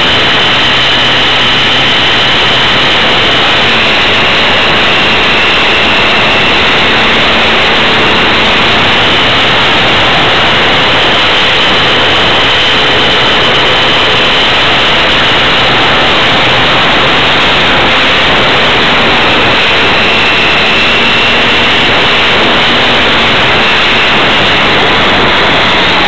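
Small radio-controlled airplane's motor and propeller, recorded from its onboard camera in flight: a loud, steady whine buried in heavy wind rush, its pitch shifting slightly a few times.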